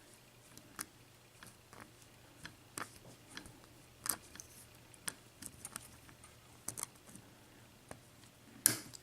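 Faint, irregular clicks and ticks of a lock pick and tension wrench working the pin stack of a Master ProSeries 6830 padlock during single-pin picking, with a sharper click about 4 s in and another near the end.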